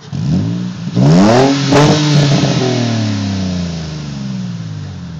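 2006 Nissan 350Z's 3.5-litre V6 breathing through a Godspeed true-dual cat-back exhaust, revved from idle twice in quick succession, the second rev higher and loudest, then dropping slowly back toward idle.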